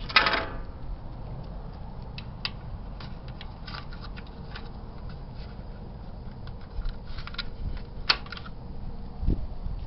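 Scattered clicks and taps of small plastic dryer parts being handled as glide pads are fitted to the front bearing support, with a sharper click about eight seconds in and a dull thump near the end.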